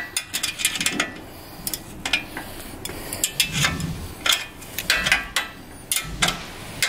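Irregular light metallic clinks and rattles as an axle nut is spun by hand onto the threaded axle of an e-bike rear hub motor, with a metal chain bracelet on the wrist jangling against the parts.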